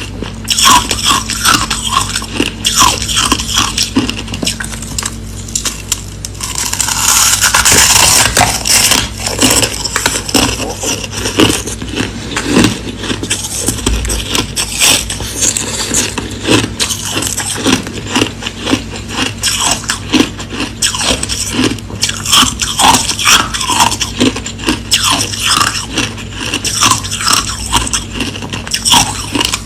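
Hard, clear crushed ice being bitten and chewed close to the microphone: a fast, continuous run of crisp crunches and cracks, with a louder, denser stretch of crunching about seven to nine seconds in. A faint steady hum runs underneath.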